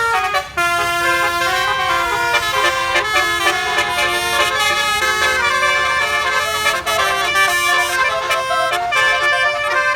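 A bus's basuri telolet horn playing a melody, several horn tones sounding together and changing pitch step by step, with a short break about half a second in.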